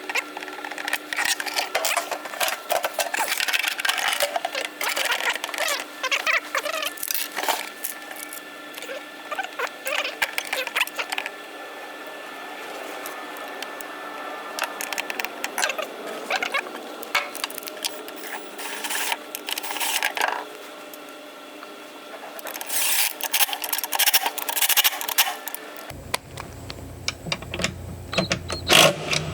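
Hand tools and metal parts clicking, rattling and scraping in an irregular run of small knocks as boat steering hardware is fastened. A low hum comes in near the end.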